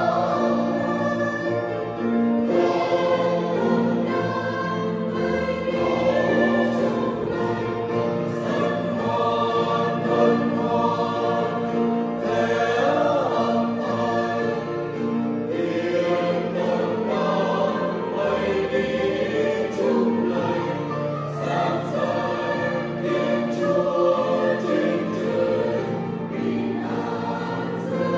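Vietnamese church choir of men and women singing a hymn together, the voices sustained and continuous throughout.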